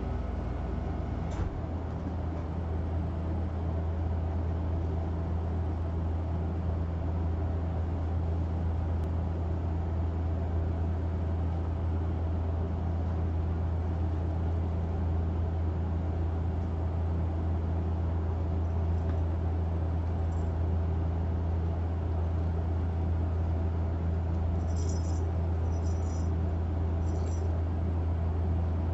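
Steady low mechanical hum, like a running appliance motor, unchanging throughout, with three brief faint high chirps near the end.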